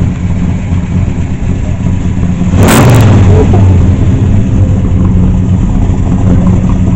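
Muscle-car engine of a Chevrolet Nova running loudly at a steady low pitch. A sharp knock comes about two and a half seconds in, and the engine runs louder from then on.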